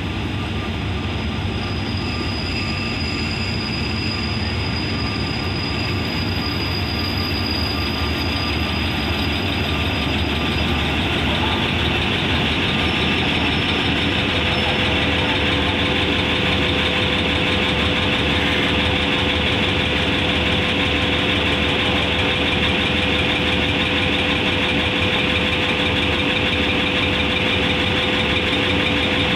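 Hitachi diesel-electric locomotive arriving and then standing with its diesel engine running steadily, growing louder as the locomotive comes alongside and holding level once it has stopped. A steady whine joins about halfway through.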